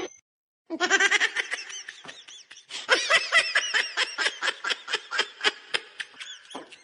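A person laughing hard in rapid, high-pitched bursts, about five or six a second, starting after a brief pause.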